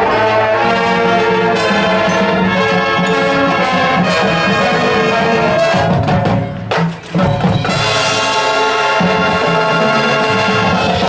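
Marching band playing its field show, the brass section holding loud sustained chords over percussion. The chords break off briefly about two-thirds of the way through, then the band comes back in.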